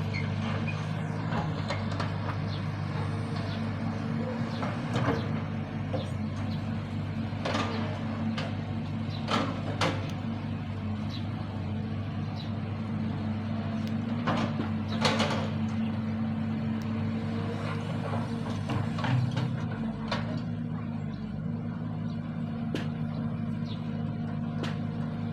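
Excavator engine running steadily, with irregular knocks and clanks every few seconds, a few of them louder than the rest.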